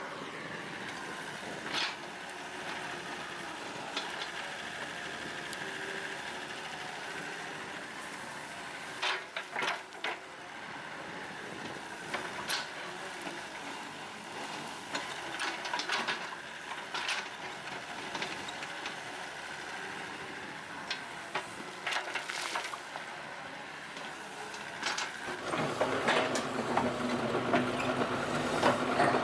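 Excavator engine running steadily, with scattered sharp knocks and clanks from the digging. It gets louder and deeper near the end.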